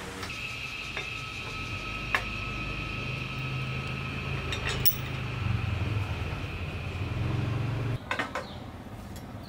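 Sharp metallic clicks and clinks of a Suzuki GN125's steering stem and triple clamps being handled and fitted together, the loudest about two seconds in, over a steady hum and a faint high whine; the hum cuts off suddenly near the end.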